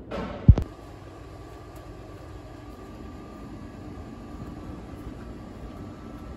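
A sharp thump about half a second in, then a steady low hum with a faint high-pitched whine over it.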